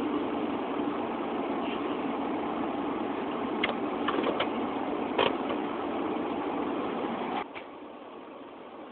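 Steady engine drone with a few sharp knocks and clanks around the middle; the drone drops away suddenly about seven and a half seconds in.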